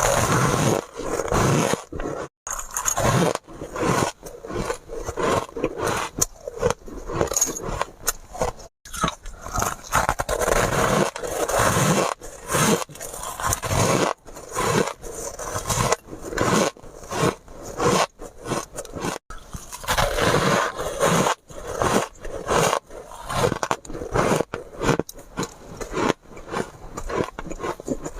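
A person biting and chewing ice: a dense run of sharp, loud crunches and crackles, several a second, broken by a few brief pauses.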